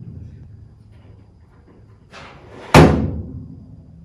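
A loud, sharp bang nearly three seconds in that rings out and fades over about a second, with a fainter knock just before it.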